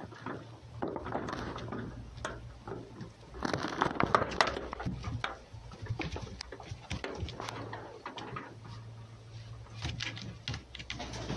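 A fox and a cat tussling on a board: paws scrabbling, tapping and scuffing in quick irregular clicks, with a louder flurry of scuffling about three and a half seconds in.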